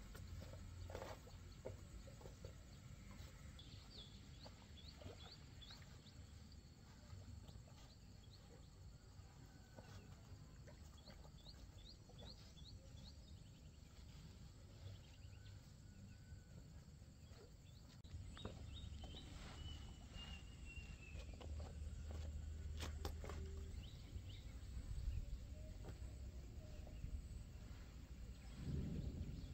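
Faint outdoor ambience with small birds chirping now and then, including one longer falling call past the middle. A couple of sharp clicks sound about three-quarters of the way through.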